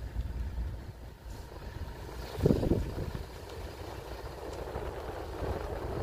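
A car driving along a road, heard from inside the cabin: a steady low rumble of engine and road noise, with a brief louder thump or buffet about two and a half seconds in.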